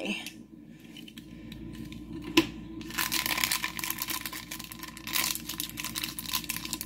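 Hands handling a small plastic Disney Doorables toy car and its figure: a sharp plastic click a little over two seconds in, then a few seconds of crinkly rustling with many small clicks as it is moved about and set down.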